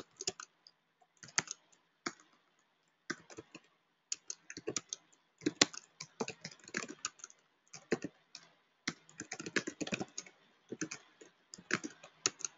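Computer keyboard being typed on: fairly faint, quick bursts of keystrokes with short pauses between them, as short terminal commands are entered.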